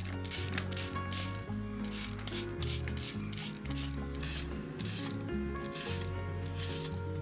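Fresh cucumber being shredded into thin strips over a stainless steel bowl: repeated rasping scrapes, about two a second, over background music with a steady bass line.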